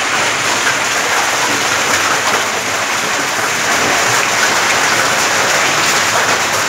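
Heavy downpour with hail, a dense, steady patter of drops and pellets striking grass, puddles and ground.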